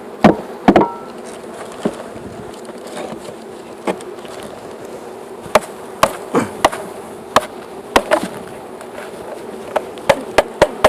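Swarm of Carniolan honeybees buzzing in a steady hum, broken by a dozen or so sharp, irregular knocks as the wooden package is knocked and shaken to tip the bees out into the hive.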